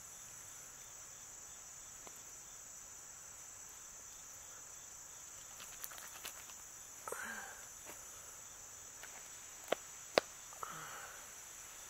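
Insects chirring steadily at a high pitch, with faint rustling as the turkey carcass is handled and two sharp clicks close together near the end.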